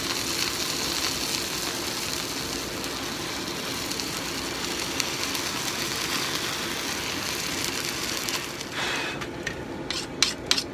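Red-hot axe edge held in a pan of quench oil for an edge-only quench: the oil sizzles and the flare-up burns with a steady hiss. After about nine seconds it dies down, and a few sharp clicks of the tongs follow near the end.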